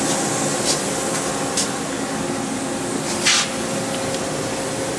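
Steady hum and hiss of a powered-up Miyano LE-31 CNC turning center and its pump motor, with three short sharp hisses, the loudest a little over three seconds in.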